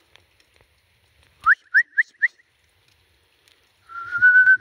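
A person whistling to call dogs in: four short rising whistles in quick succession about a second and a half in, then a long, nearly level whistle that starts near the end.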